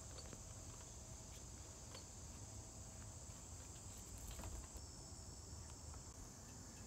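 Faint steady high-pitched chirring of insects, with a second high tone joining about five seconds in and a few faint ticks now and then.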